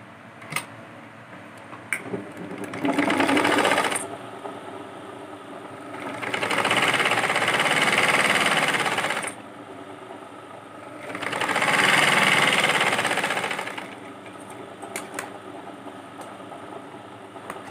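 Domestic sewing machine stitching cloth in three runs, a short one and then two of about three seconds each, each swelling and easing off, with a few light clicks of handling between runs.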